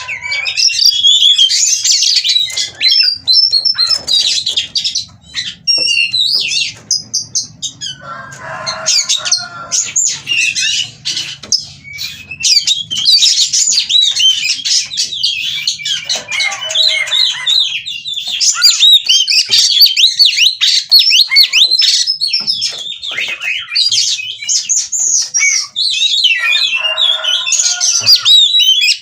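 Oriental magpie-robin (kacer) singing a long, nonstop, varied song of quick whistled phrases, broken three times by lower, rougher chattering passages. It is the full song of a bird in breeding mood.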